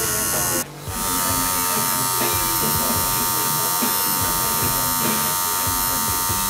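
Coil tattoo machine buzzing steadily as it inks skin, with a brief break about half a second in.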